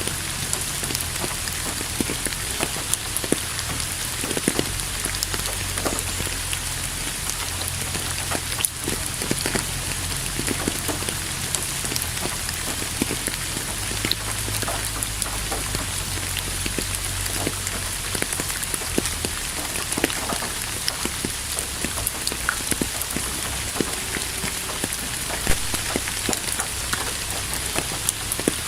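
Steady rain falling on a surface: an even hiss with many individual drops tapping, over a low steady rumble.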